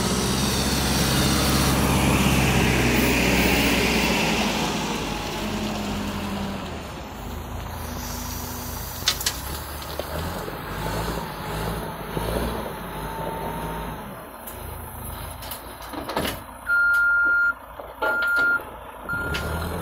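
CAT backhoe loader's diesel engine running, loud for the first few seconds as it drives in with a loaded front bucket, then lower as it tips vegetation debris into a dump truck. Near the end a reversing alarm starts beeping, about one beep a second.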